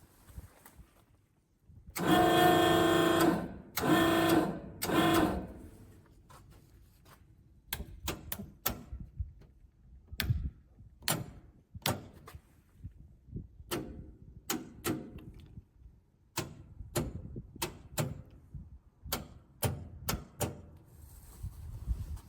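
A machine hums in three short bursts, then a run of irregular sharp clicks and knocks.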